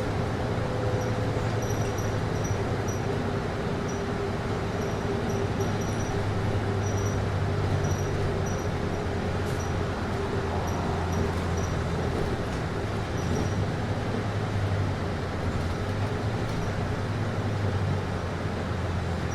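Steady whooshing hum of a city bus's air conditioning heard inside the cabin, over the low drone of the running bus. Faint high-pitched chirps come and go.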